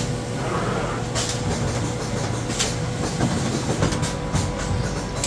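FIPTINA automatic laser pocket-slitting and zipper-setting sewing machine running: a steady mechanical hum with a thin steady tone, broken by a few short hissing clicks.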